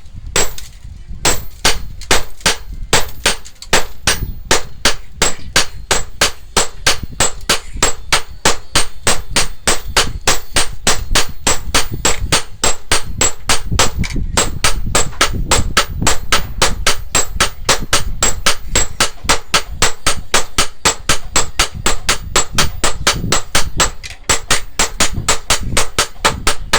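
Blacksmith's hammer striking metal in a steady rapid rhythm, about three to four blows a second, each with a metallic ring, over a low rumble.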